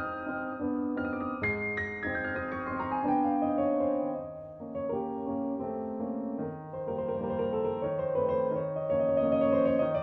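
Background piano music, with notes and chords struck and left to ring.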